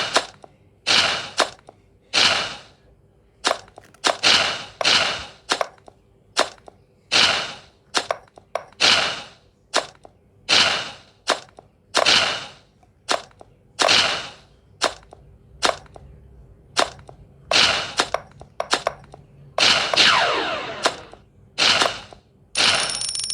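A series of about twenty sharp, gunshot-like bangs at irregular intervals, each trailing off in a short echoing tail; one near the end carries a falling whine.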